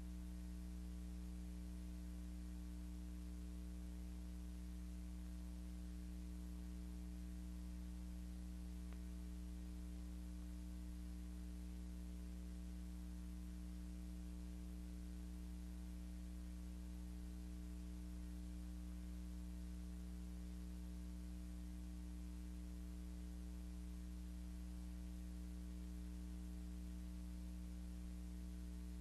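Steady low electrical mains hum with faint hiss, unchanging throughout.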